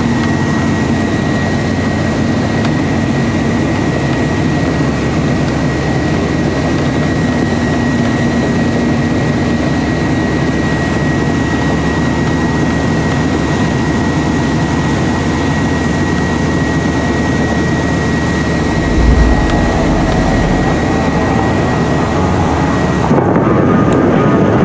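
1977 Chevrolet Corvette's V8 running steadily under way, heard from inside the car together with road noise. A single low bump about three-quarters of the way through.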